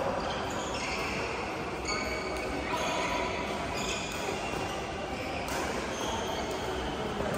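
Badminton play: sports shoes squeaking on the court floor, with many short, high squeaks throughout, and a few sharp racket hits on shuttlecocks, in an echoing hall.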